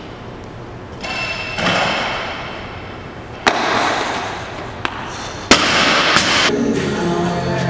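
A barbell loaded with bumper plates being snatched and dropped: the plates clank as the bar is pulled from the floor, a sharp thud comes about three and a half seconds in as it is caught overhead, and the loudest bang comes about five and a half seconds in as the bar is dropped onto the gym floor, followed by a smaller bounce.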